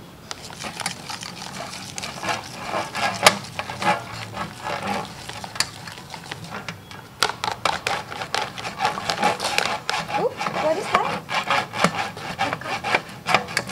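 Utensils scraping and tapping against mixing bowls as cake batter is stirred by hand: a quick, irregular run of scrapes and clicks that grows busier about halfway through.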